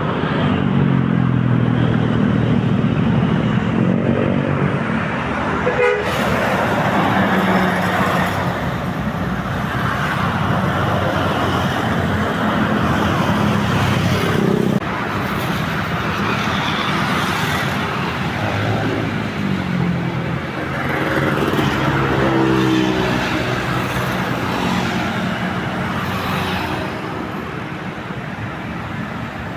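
Roadside traffic with large buses passing, their diesel engines rising and falling in pitch, mixed with vehicle horns tooting.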